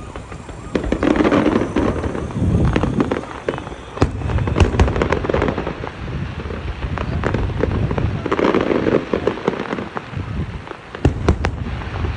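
Aerial fireworks bursting overhead: repeated deep booms with many sharp crackles among them.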